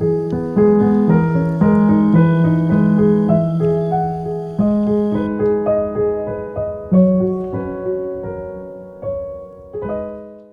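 Background piano music: a melody of struck notes, each ringing and fading, that stops at the very end.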